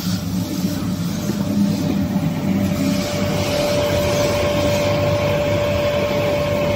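Toilet-paper log saw cutting machine running at speed: a steady mechanical drone with a low hum, joined about three seconds in by a steady whine that holds to the end.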